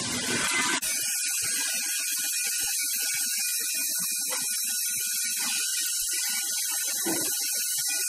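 Factory machine noise that cuts off abruptly under a second in, giving way to a steady high hiss of shop-floor ambience with faint scattered knocks.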